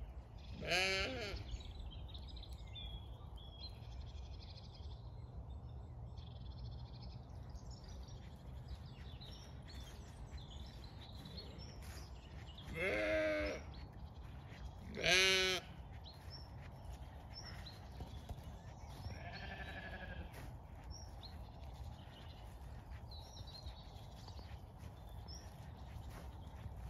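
Zwartbles sheep bleating, four wavering bleats in all: a loud one about a second in, a longer one around 13 seconds, another loud one about two seconds later, and a fainter one near 20 seconds.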